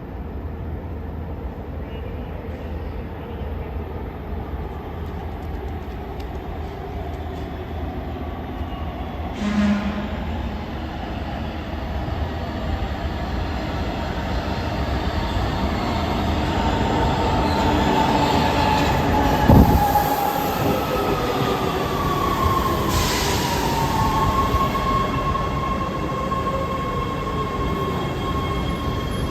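LA Metro B/D Line subway train moving through the underground station. It is a rumble that grows louder toward the middle, with wheel squeal and a whine that falls in pitch about two-thirds of the way through. There is a sharp knock near the middle.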